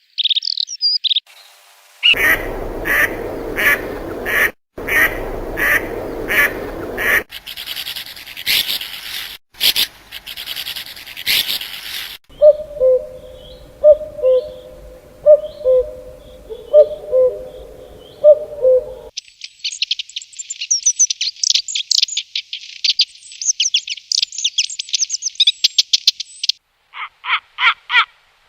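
A run of different wild bird calls, one recording after another. There are short high chirps, then repeated calls over background noise, then low hoots at about one a second, then a long rapid high trill near the end.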